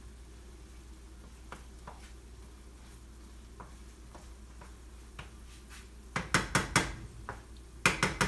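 Kitchen utensils clattering against a skillet and dishes: a few light clicks, then two quick runs of loud clanks near the end.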